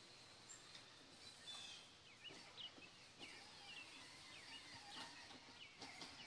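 Faint birdsong: many small birds chirping in short, quick calls, some sliding up and some down in pitch.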